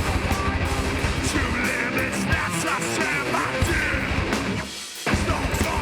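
Live heavy hardcore band playing loud, with drums and a thick band sound under shouted vocals. The band drops out briefly about five seconds in, then comes back in.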